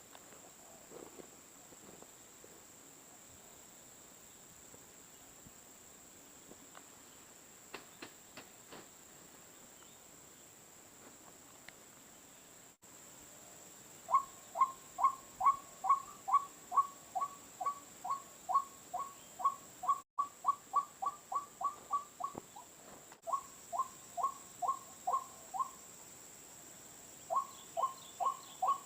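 White-breasted waterhen (ruak-ruak) giving its repeated two-note call, about three a second, in long runs that begin about halfway through with short breaks between them. A steady high insect drone runs underneath.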